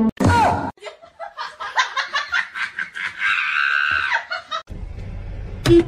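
Laughter, a string of short rhythmic bursts that goes on for about four seconds. A low hum follows, with a sharp click near the end.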